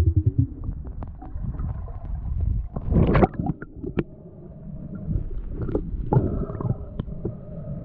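Underwater sound heard through a submerged camera: an uneven low rumble of moving water with scattered small clicks and knocks. Short gurgling rushes come about three seconds in and again around six seconds.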